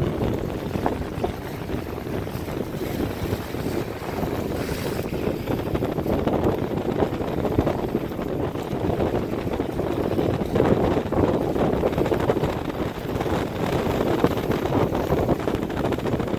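Wind buffeting the microphone, a steady rumble that swells in gusts, over choppy water washing against a rock jetty.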